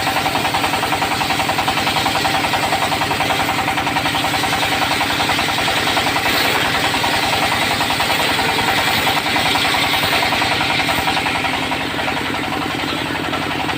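Diesel engine of a portable circular sawmill running steadily under power, with a fast, even thumping beat. The level eases slightly near the end.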